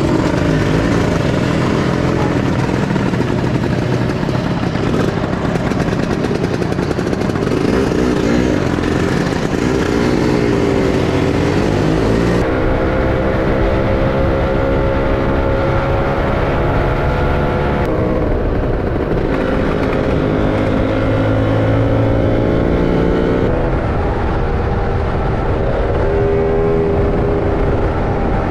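Motorcycle engine heard on board while riding, pulling away and accelerating through the gears: the pitch climbs, then drops and resettles at each shift, several times over.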